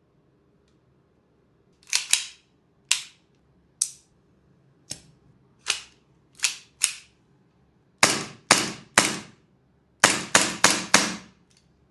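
Army Kimber 1911 gas airsoft pistol firing BBs, about fifteen sharp shots. The first shots come singly, spaced half a second to a second apart. In the last four seconds they come in quicker strings of three to four.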